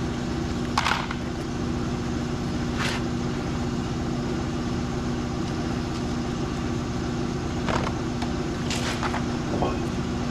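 A motor running with a steady, even hum, with a few sharp metallic clinks of hand tools against metal scattered through it.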